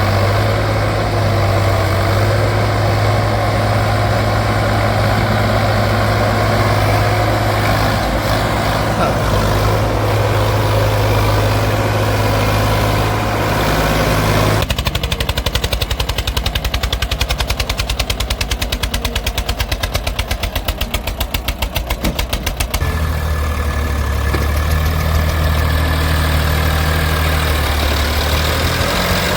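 Diesel engines of heavy farm and earth-moving machines running, loud and close. There is a steady low hum at first, then a fast, even pulsing from about halfway through, then a steady low hum again near the end, with each change abrupt.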